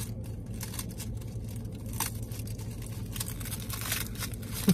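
A small plastic cracker packet crinkling and being torn open, in crackly bursts, over a steady low hum. A single sharp thump at the very end is the loudest sound.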